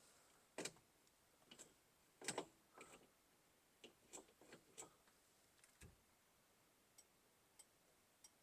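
Faint, irregularly spaced clicks and taps, a dozen or so in all, from a car's turn signal switch and steering column being worked by hand while the newly installed switch is tested.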